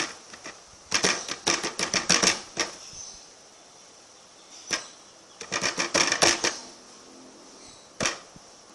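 Slime being squeezed and poked, giving runs of quick popping clicks in several bursts, with short pauses between them.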